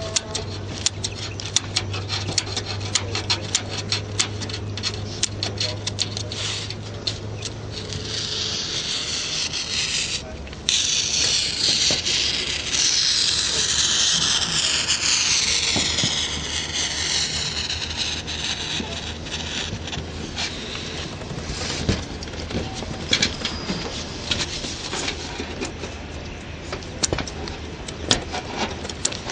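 A metal hand tool scraping and tapping against corrugated metal roof sheeting and the edge of a laid sheet, in many short irregular scrapes and clicks. About ten seconds in comes a louder, high-pitched scraping rub with sliding pitch that lasts several seconds.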